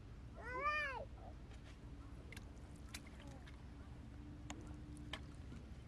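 A short animal call about half a second in, rising and then falling in pitch, followed by a few faint scattered clicks.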